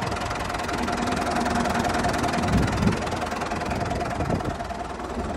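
Hanomag tractor's diesel engine idling steadily.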